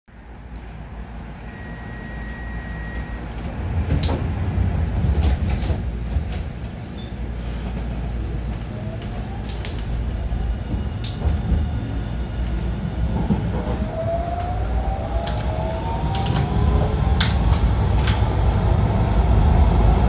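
Light rail car heard from inside as it pulls out of a station and speeds up: a low rumble that grows steadily louder, with the motor whine rising in pitch from about halfway through. Scattered sharp clicks and knocks come from the wheels and car body, and a brief high tone sounds near the start.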